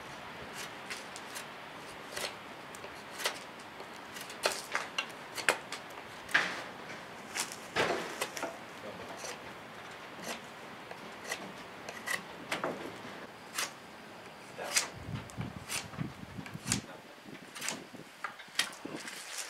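Fixed-blade bushcraft knife whittling and scraping down the thick end of a peeled wooden stick: irregular short scrapes and clicks of the blade on the wood.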